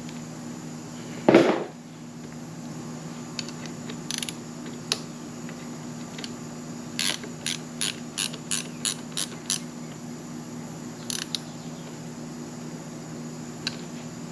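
Hand ratchet clicking in short runs, about three clicks a second, as it turns the brake-hose banjo bolt into a motorcycle's front brake master cylinder. A single thump about a second in, over a steady low hum.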